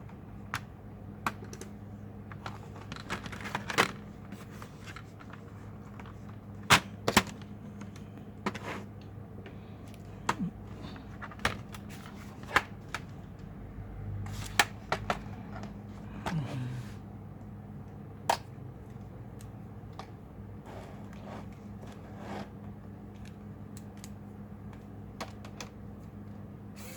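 Irregular clicks, taps and small knocks of plastic and metal laptop parts and tools being handled while a laptop is taken apart, over a steady low hum.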